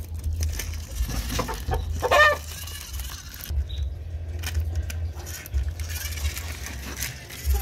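Plastic toy monster truck pushed by hand over stones and concrete, its wheels and body scraping and knocking. There is a short high-pitched call about two seconds in, the loudest moment, and a steady low rumble underneath.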